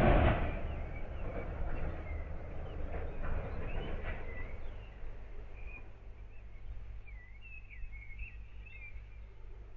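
Birds chirping over a low rumble, with a sudden loud boom at the very start that dies away over about a second. The chirps grow busier near the end.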